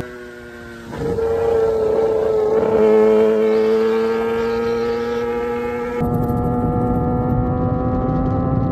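Kawasaki ZX-10R inline-four engine pulling steadily at high revs under way, its note slowly rising in pitch as the bike gathers speed, with wind rushing over the microphone. It is quieter for about the first second.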